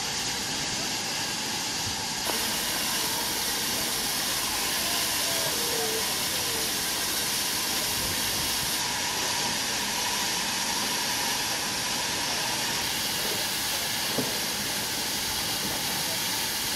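Steam hissing steadily from a standing LNER K4 2-6-0 steam locomotive: an even, high hiss with no exhaust beats. One brief knock comes near the end.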